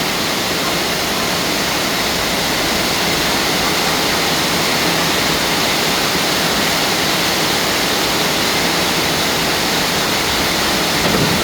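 Heavy rainstorm: a steady, loud rush of pouring rain and running water.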